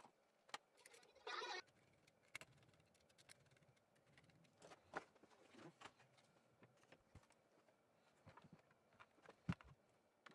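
Faint handling noises of laptop parts: scattered light clicks and knocks as a plastic laptop top case and cables are moved and fitted, with a short rasping scrape about a second and a half in and a sharper knock near the end.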